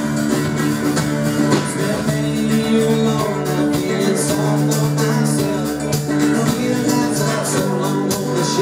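Live band playing an instrumental passage of a pop-rock song, led by guitar over a steady beat.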